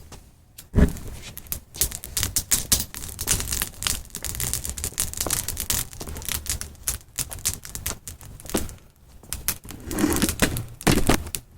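High-voltage electricity arcing through an old alarm clock: a sharp snap about a second in, then dense, irregular crackling and snapping.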